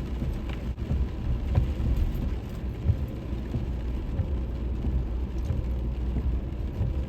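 Inside a pickup truck's cab: the steady low rumble of the truck, with scattered soft thumps and faint ticking of light rain.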